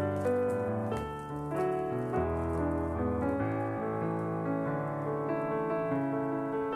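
Background piano music: a melody of changing notes over lower bass notes.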